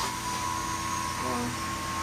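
A machine running steadily: a constant high whine over a low hum and hiss, with a brief short tone about a second and a half in.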